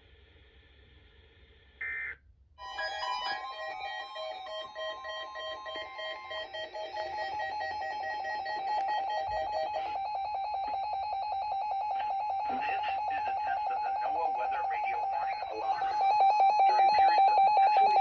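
Several NOAA Weather Radio receivers sounding their electronic alert beeps for a Required Weekly Test: rapid, even pulses of tones at several pitches that overlap, following a couple of seconds of near silence. The beeping gets louder near the end, as another receiver joins in.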